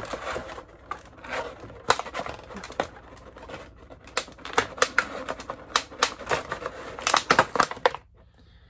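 Clear plastic blister packaging crinkling and clicking as it is handled and pulled open to free a vinyl figure, with many sharp crackles and snaps. It stops just before the end.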